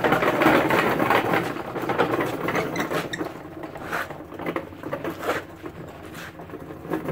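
Model T Ford engine block on a small wheeled steel frame being rolled across a concrete floor, its casters and the frame rattling quickly. The rattle is loudest for the first three seconds, then eases off into scattered knocks.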